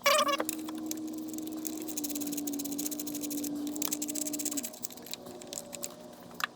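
A cat gives a short meow at the very start, followed by a steady hum and fast fine ticking that stop about four and a half seconds in.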